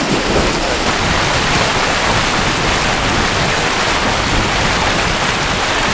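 Steady loud rushing noise of wind buffeting the microphone over open water, with a ragged, fluttering low rumble and no distinct events.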